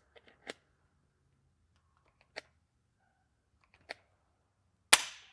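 Hand pop-rivet tool squeezed in three strokes, each giving a short click, then a loud sharp snap near the end as the rivet's mandrel breaks off and the rivet is set.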